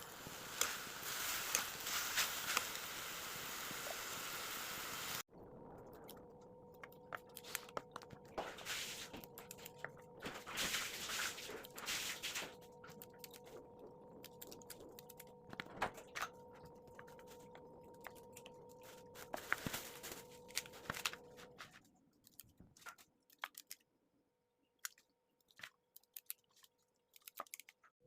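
Kitchen food-preparation sounds: a steady hiss for the first five seconds, then scattered clicks, knocks and crunches over a faint steady hum, growing sparse near the end.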